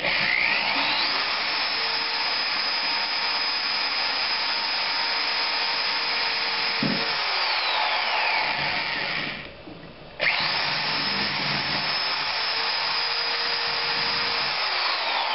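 Corded electric drill boring a small pilot hole into a snapped bolt stub in an exhaust manifold, its motor whine rising as it spins up. It runs steadily, stops for under a second about nine and a half seconds in, then starts again and runs until near the end.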